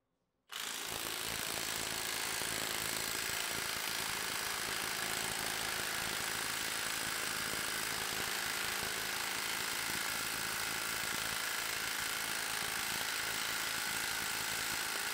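Milwaukee M18 3/8-inch mid-torque cordless impact wrench hammering steadily under load on a torque tester, driving through a 3/8-to-1/2-inch impact adapter. It starts about half a second in.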